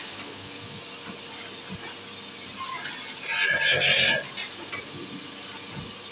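Electric chainsaw-chain sharpener's grinding wheel spinning with a steady hiss. About three seconds in, the wheel is brought down on a chain tooth and grinds it in one loud, high-pitched burst lasting about a second.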